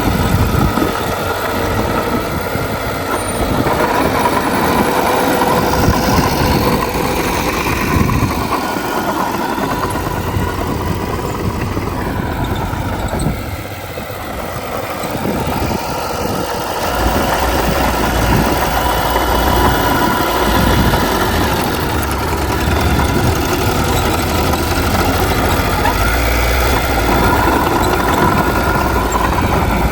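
Diesel engines of heavy earthmoving machinery running continuously, their level rising and falling, with a brief dip about halfway through.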